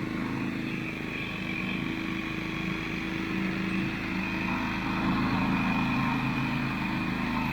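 Engine of a home-built zero-turn ride-on lawn mower running steadily while it mows, getting a little louder about five seconds in.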